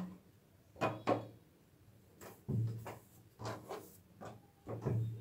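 Kitchen handling noises at a work board: a string of short knocks and scrapes, irregularly spaced, as utensils and a piece of dough are set down and moved on the board.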